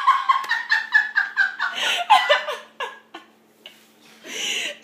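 A woman laughing hard: a rapid run of high ha-ha pulses that fall in pitch, dying away after about three seconds, then a loud breathy gasp near the end.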